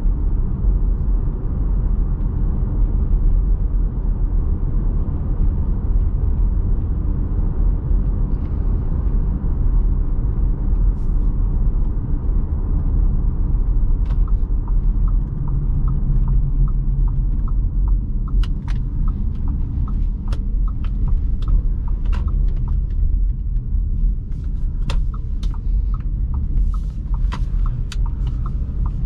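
Cabin noise of a 2021 Audi Q3 with its 2.0-litre four-cylinder, driving: a steady low rumble of engine and road. From about halfway through, the turn signal ticks evenly, and a few sharp clicks come in the last several seconds.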